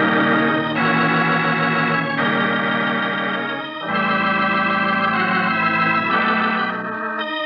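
Radio-drama music bridge marking a scene change: a string of sustained organ chords, each held for a second or two before the next.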